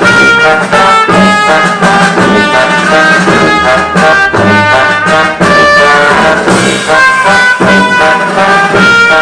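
Brass-led music with trumpet and trombone playing a lively tune over a steady beat.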